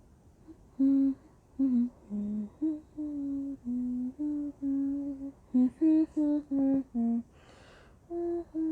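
A voice humming a tune in a run of short held notes, pausing briefly about seven seconds in and starting again near the end.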